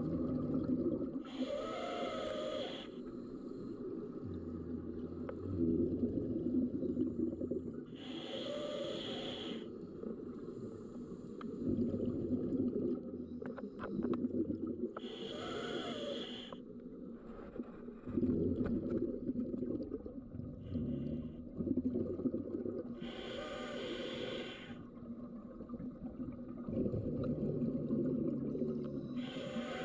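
Scuba diver breathing through a regulator underwater: a rush of exhaled bubbles about every seven seconds, five times, with a quieter low surge from each inhalation in between.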